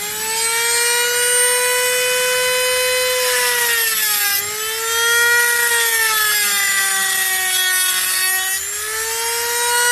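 Handheld rotary tool with a small cutoff disc cutting through a metal ring worn on a swollen finger, giving a high steady whine. The whine climbs to speed in the first second, sags briefly about four seconds in and stays lower for a few seconds as the disc bites into the metal, then rises again near the end.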